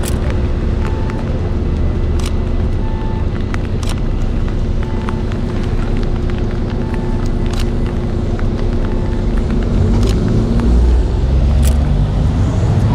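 Street traffic on wet roads: a vehicle engine runs nearby with a steady low rumble and hum. A short high beep repeats about every two seconds, and a few sharp clicks are scattered through.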